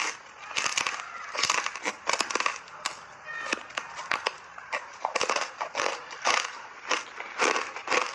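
Hard ice being bitten and chewed close to the microphone: an irregular run of sharp crunches, about two or three a second.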